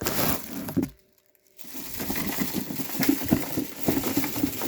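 Cardboard box and packaging being handled: rustling and crinkling with small knocks and clicks. It stops briefly about a second in, then goes on.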